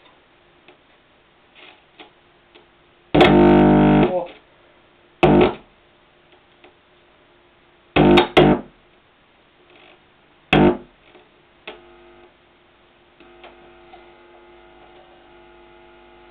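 A Vega 300 stereo record player's speakers give four loud, abrupt bursts of buzzing while the tonearm and stylus are handled; the longest lasts about a second. Faint music from the record comes through near the end.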